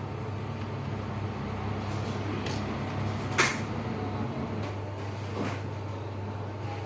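A sharp click about three and a half seconds in, with a couple of fainter knocks, over a steady low hum.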